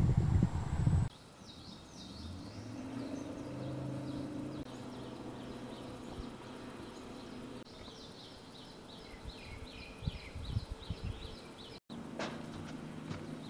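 Outdoor ambience with small birds chirping again and again over a faint low hum. A loud low rumble fills the first second and cuts off suddenly, and a few soft knocks come near the end.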